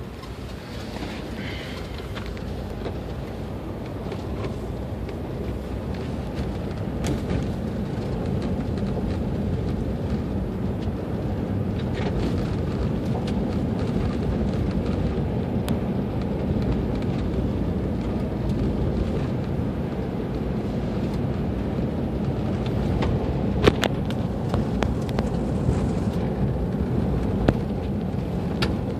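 Inside the cabin of a SsangYong SUV driving on a gravel road: steady engine and tyre rumble that builds over the first several seconds as it picks up speed, then holds. A few sharp clicks come through near the end.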